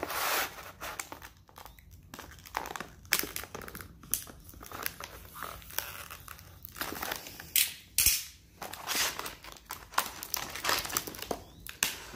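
Stiff plastic clamshell packaging crinkling and crackling in irregular bursts as it is cut along its edges with a utility knife, with a sharp snap about eight seconds in.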